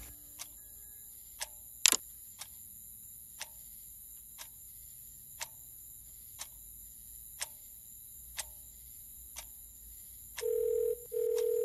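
A clock ticking faintly about once a second, with one sharp click about two seconds in. Near the end a phone's ringing tone starts in the earpiece, a steady beep in pairs, as an outgoing call rings at the other end.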